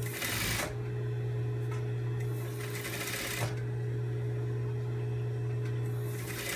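Sewing machine edge-stitching a seam in satin, its motor humming steadily. Three louder noisy spells of a second or so come at the start, around the middle and near the end.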